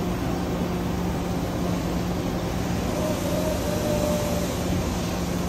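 Makino MC-108 horizontal machining center running with a steady hum while its rotary pallet table indexes the fixture to a new angle. A faint thin whine rises briefly about three seconds in.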